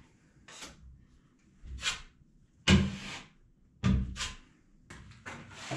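Metal filling knife scraping joint compound onto a plasterboard ceiling in about half a dozen short strokes. The two loudest strokes, about two and three quarter seconds and four seconds in, carry a knock.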